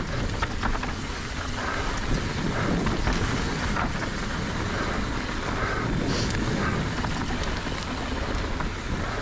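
Wind rushing over the microphone and mountain bike tyres rolling and skidding on loose, sandy dirt during a steep descent, with scattered small knocks from the bike.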